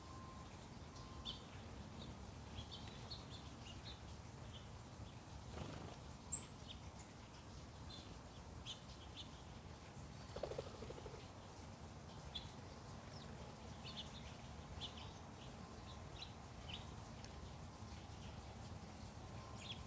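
Small songbirds chirping faintly and sporadically, short high chirps scattered throughout, with one sharper, louder, very high chirp about six seconds in and a brief lower call about ten seconds in.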